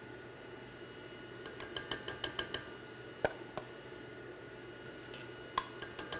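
Metal spoon scraping and clinking against a stainless steel mixing bowl as banana mixture is spooned into a stand mixer: a quick run of light clinks about two seconds in, a sharper knock a little after three seconds, and another near the end. Under it, the steady hum of the stand mixer running on low speed.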